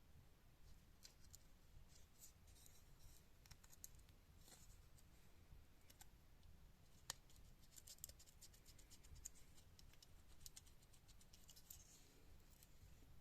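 Near silence with faint, scattered scratching and clicking, one sharper click about seven seconds in.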